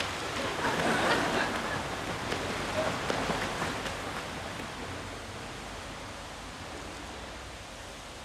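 Water splashing as a swimmer thrashes about in a pool, uneven and loudest in the first few seconds, then dying down to a steady background hiss.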